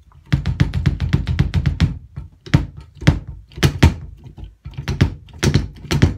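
Bass drum struck with a kick pedal played heel-up, the raised foot dropping onto the footboard. A fast run of strokes for about the first two seconds, then slower, spaced kicks.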